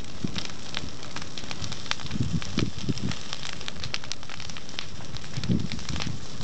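Vegetation fire burning through dry grass and pine-needle litter, crackling with many sharp pops and snaps over a steady rushing hiss.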